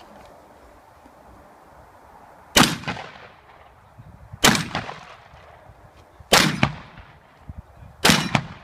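Four shotgun shots about two seconds apart, each a loud report with a short decaying tail.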